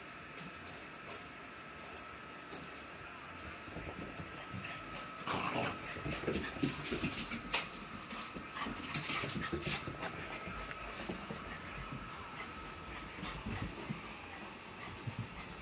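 Olde English Bulldogge puppy tearing around during a bout of zoomies: scrabbling paws, short clicks and knocks, and small dog sounds, busiest around six and nine seconds in.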